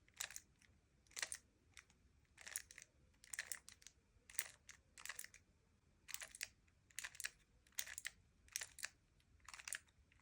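Speed cube's top layer being flicked around with the fingers: repeated short plastic clacks, about one turn a second, some coming in quick pairs.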